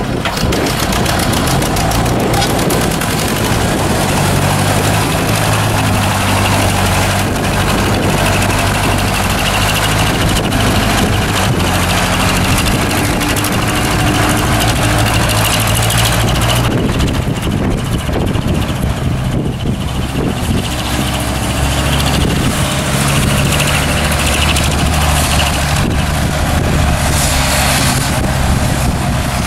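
Diesel engines of two farm tractors, a John Deere 5720 and an Ursus C-325, working under heavy load as the pair drag a slurry tanker through deep mud. The engine note rises and falls with the load.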